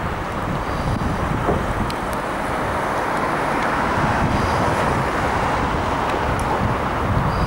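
Airbus A320-214's CFM56 jet engines running: a steady rushing roar that grows a little louder through the middle.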